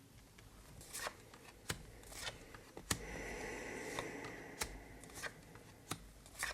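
Tarot cards being shuffled, a steady rustle a few seconds in, among a series of sharp clicks and snaps as cards are handled and put down.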